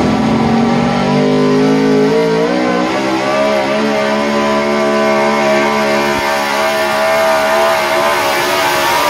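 Pickup truck engine held at high revs under full load while pulling a weight-transfer sled. Its pitch climbs in steps over the first three seconds, then holds steady.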